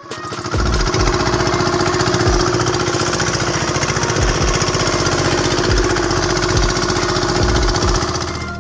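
A small boat's engine running steadily under way, a fast even pulsing beat, with irregular low thumps of wind buffeting the microphone.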